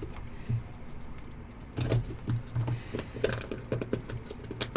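Trading cards and their packaging being handled on a table: a quiet stretch, then about two seconds in a run of irregular light clicks, taps and rustles.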